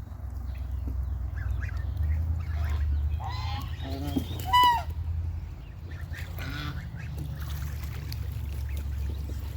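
Geese honking in scattered calls, the loudest a quick run of honks about halfway through, over a steady low rumble.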